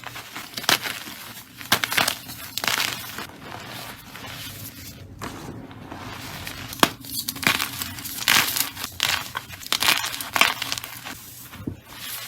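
Slime mixed with gym chalk being squeezed and pressed by hand, giving irregular crunchy crackles, about one or two bursts a second, with a short lull near the middle.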